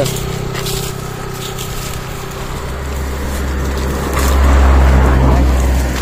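A motorbike passing on the road, its engine a steady low hum. About four seconds in, a louder low rumble takes over for a second or two.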